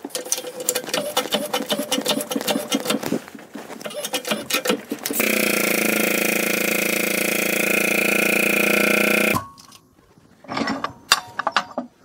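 Air-over-hydraulic pump of a shop press pressing apart a Yamaha 701 crankshaft. First comes rapid clicking and chattering. Then the pump gives a steady buzz with an air hiss for about four seconds, which cuts off suddenly.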